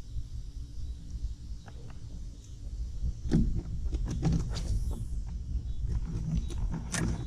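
A steady low rumble, with knocks and clatters from about three seconds in: hands working a spinning rod and reel in a small aluminium boat.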